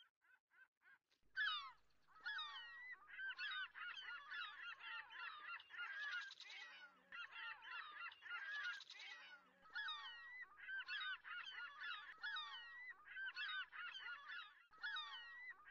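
Faint cries of a flock of seagulls: many short, overlapping calls that slide downward in pitch, starting about a second and a half in and continuing thickly throughout.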